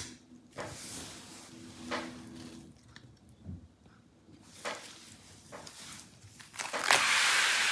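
Faint handling sounds on an opened laptop: soft rustles and light taps of gloved fingers and a plastic spudger around the Wi-Fi card. Near the end a steady hiss comes in, louder than the handling.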